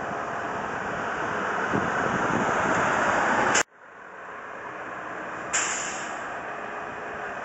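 Steady running noise of a utility boom truck's engine as the crew lifts a wooden pole onto a trailer. It cuts out abruptly about three and a half seconds in, then builds back up, with a brief jump a couple of seconds later.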